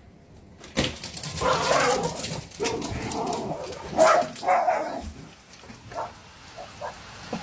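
A dog barking and whimpering in a run of calls, loudest about four seconds in, with a few shorter calls near the end.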